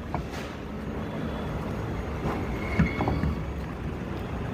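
A few short metallic knocks from a steel tyre lever against a truck tyre and steel wheel, the loudest about halfway through, over a steady low rumble.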